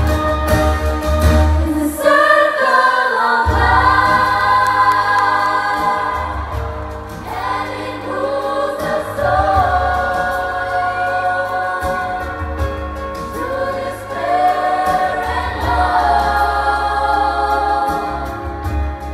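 A youth choir singing live into handheld microphones over an amplified accompaniment with a strong bass line, heard through a concert PA. The bass drops out for a moment about two seconds in while the voices carry on.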